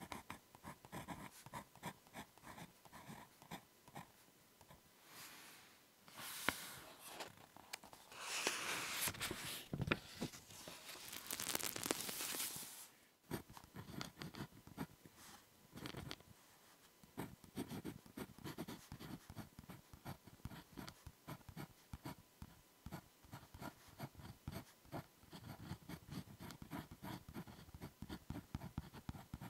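Ballpoint pen writing on notebook paper in quick short strokes. In the middle there is a louder, longer stretch of paper rustling as the page is changed, after which the pen strokes resume.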